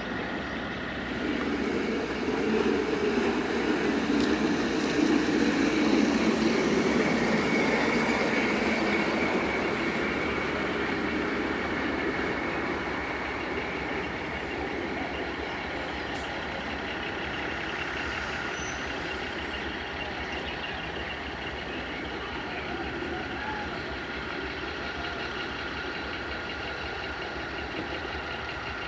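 A diesel rail vehicle running, swelling louder about a second in and then easing back to a steady lower running sound.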